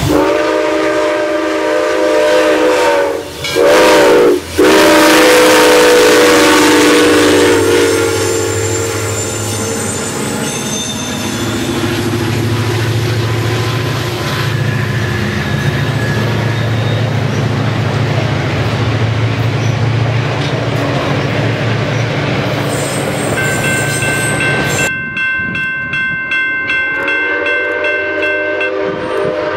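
Southern Railway No. 630, a 2-8-0 steam locomotive, blows its chime whistle in three blasts, the middle one short. The locomotive and its passenger cars then roll past with a steady low rumble of wheels on rail. Near the end a steam whistle sounds again.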